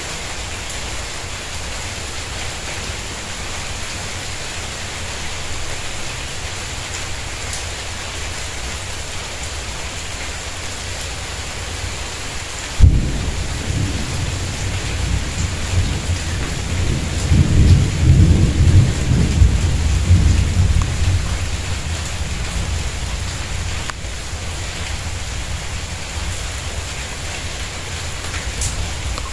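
Steady rain falling on a tiled courtyard and its plants. About halfway through, a sudden thunderclap breaks in and rolls on as a low rumble for about ten seconds, swelling again before it fades, while the rain keeps falling.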